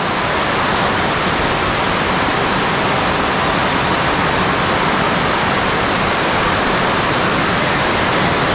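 Heavy rain falling on a pond's surface, a loud, even hiss.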